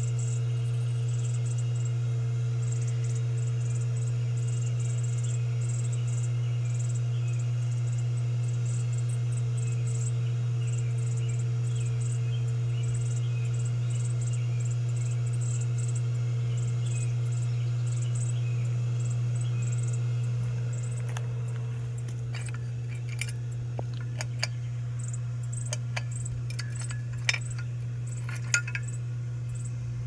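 Air Cool ceiling fan with a footprint-vent motor housing running, its motor giving a steady low hum. About two-thirds through the hum eases slightly and light clinks and rattles of the glass light shades and brass fittings follow as the fan is handled.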